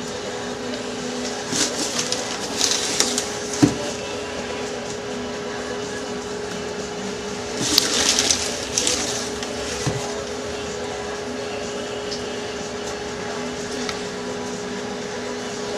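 Two spells of plastic rustling and scraping as powder is scooped out of a bag-lined plastic jar, with a sharp click a few seconds in, over a steady machine hum.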